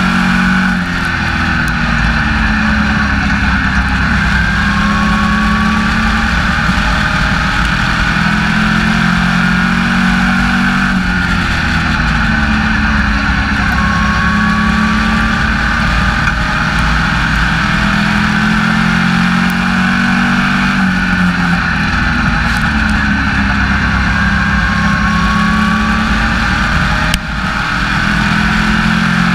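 SK Lite Modified race car's engine at racing speed, heard from inside the cockpit: the revs climb along each straightaway and ease off into each turn, about every ten seconds.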